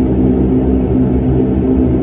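Airliner cabin noise while taxiing after landing: the engines running at idle, a steady rumble with a constant low hum.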